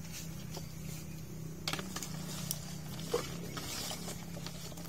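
Small wet fish being scooped with a plastic cup in a plastic basin: a wet, slithering patter of fish with light knocks and scrapes of the cup against the tub, over a steady low hum.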